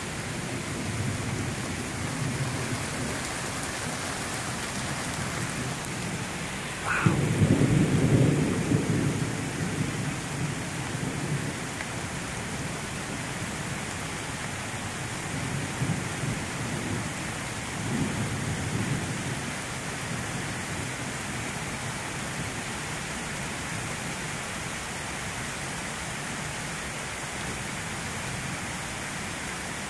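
Thunderstorm in a forest: steady rain falling on the trees, with a sharp thunderclap about seven seconds in that rolls on for a few seconds. Two softer rumbles of thunder follow later.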